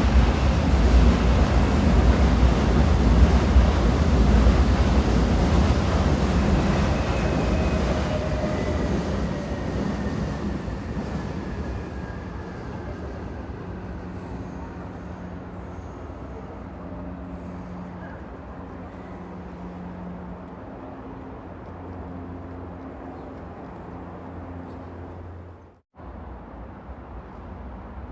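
Train running on rails: a loud low rumble that fades steadily over the first dozen seconds, with a faint falling whine, then settles to a quieter steady rumble with a light hum. The sound cuts out abruptly for a split second near the end.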